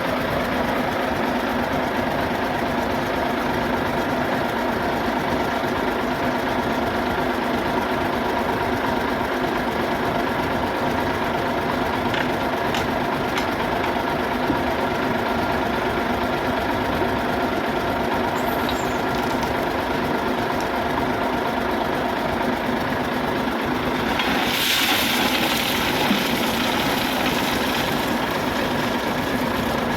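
Shantui SD16E bulldozer's diesel engine running steadily while working. About 25 seconds in, a louder hissing rush lasts around three seconds.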